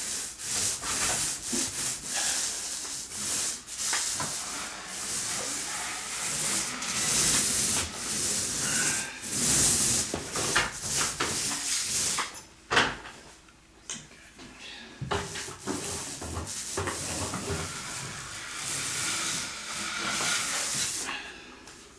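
Steel drywall knife spreading and scraping Durabond setting compound across a ceiling in repeated strokes, with a short lull a little past halfway.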